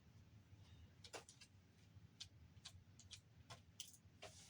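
Faint, irregular clicks and ticks from a Blu-ray player's small parts being handled during disassembly, about seven spread over a few seconds, over a low steady hum.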